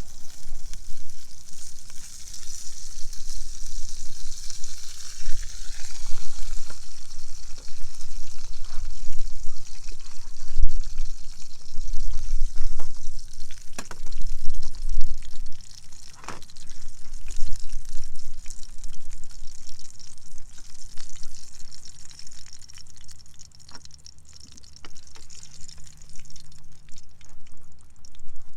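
Fish fingers frying in a pan on a camping stove: a steady sizzle, with a few sharp clicks of utensils on the pan.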